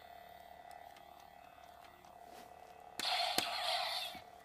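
Hasbro Anakin to Darth Vader toy lightsaber, lit red, playing its electronic idle hum. About three seconds in, a louder electronic sound effect lasts about a second, with a sharp click in it, then the hum returns.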